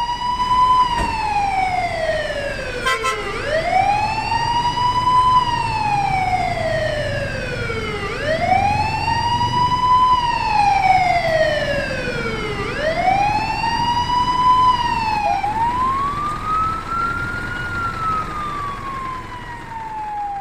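Fire truck siren wailing. Each cycle rises quickly and then falls slowly, about every four and a half seconds, over a low rumble of engine and road noise.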